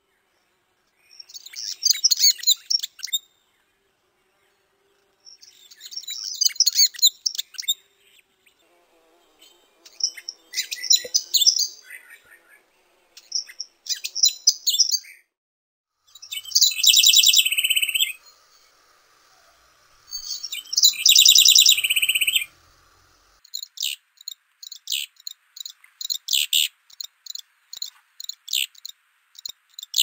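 Rufous-browed wren singing: four bursts of rapid, tumbling high notes. About halfway through, a Santa Marta wren follows with two loud trilled phrases a few seconds apart, then a long run of short, separate high notes.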